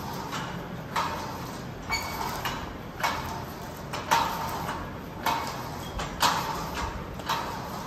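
Cable machine weight stack clanking with each repetition of a straight-arm pulldown, one short metallic clink about once a second, each ringing briefly.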